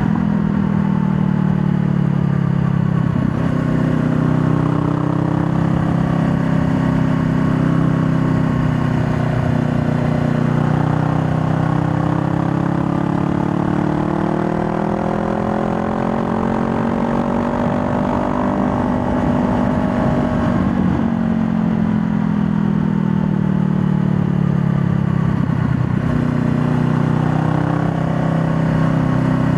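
2020 Honda Rebel 500's parallel-twin engine running under way, its note changing with throttle and gears: a slow rise in pitch through the middle, then a sudden drop about twenty seconds in, with shorter dips near the start and near the end.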